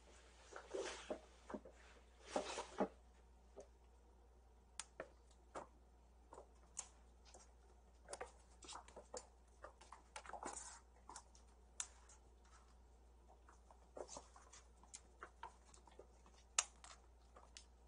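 Kittens playing on the floor: scattered light taps, patters and short scuffles, with a few louder rustling bursts.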